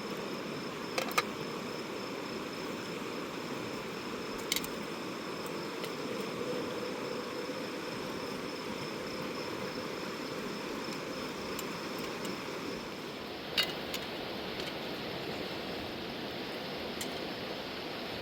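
Steady rush of flowing river water, with a faint high tone over it. A few sharp clicks or knocks sound about a second in, around four and a half seconds, and once more near the end.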